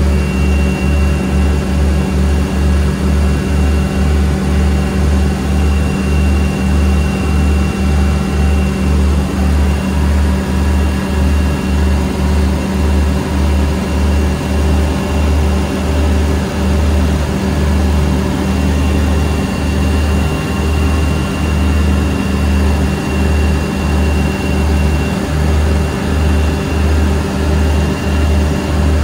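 Engines and propellers of a homemade twin-engine light aircraft running steadily in flight, heard from inside the cockpit, with a regular low pulsing throb.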